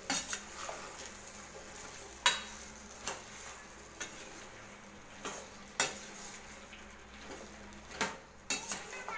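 Metal spatula stirring cubed brinjal in a stainless steel pan, scraping and clinking against the pan at irregular moments, over a low steady sizzle of frying in oil. The sharpest clinks come a little over two seconds in and near six seconds.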